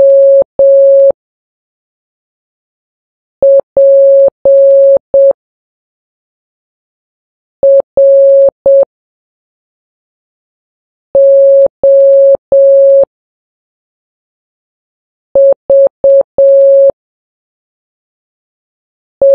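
Morse code practice tone: a single steady beep keyed into short dots and long dashes. Each letter is sent quickly, with a pause of two to three seconds before the next, about one letter every four seconds, for slow 3-words-per-minute copying.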